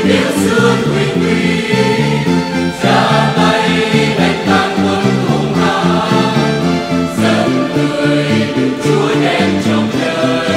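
Mixed church choir of men's and women's voices singing a hymn in Vietnamese, several voice parts moving together without a break.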